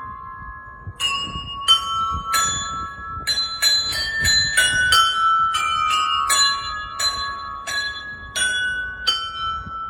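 Bells struck one after another at several high pitches, each note ringing on, in an uneven run of about one or two strikes a second that begins about a second in.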